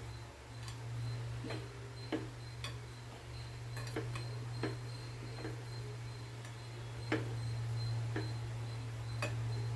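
Light, irregular clicks and taps, roughly one every half second to a second, as rice-flour dough is kneaded by hand in a bowl, over a steady low hum.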